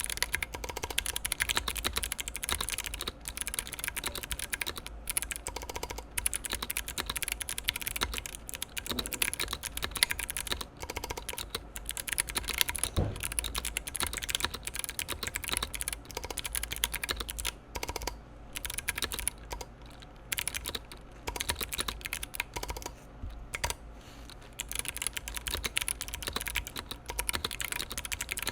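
Continuous fast typing on a mechanical keyboard with clicky Kailh Box White switches on an aluminium plate in an aluminium 60% case, each keystroke giving a sharp click, with a few brief pauses in the second half.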